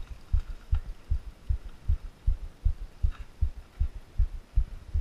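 Regular low thumps, about three a second, picked up through a mountain biker's body- or bike-mounted camera while riding.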